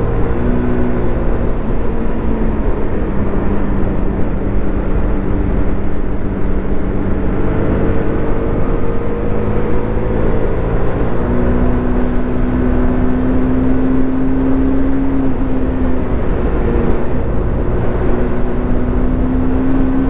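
Motorcycle engine running under way, its note holding steady and then stepping up or down a few times, with heavy wind rush. The rider says the engine has been reluctant to rev past about 6000 rpm and suspects a fault.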